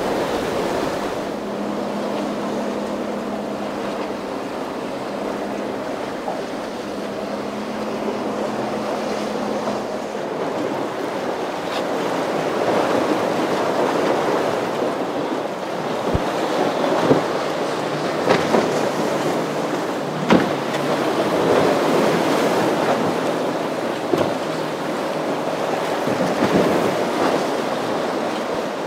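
A boat engine's steady drone over breaking waves and wind buffeting the microphone. The engine drone fades out about a third of the way in, leaving surging surf and wind with a few short sharp knocks.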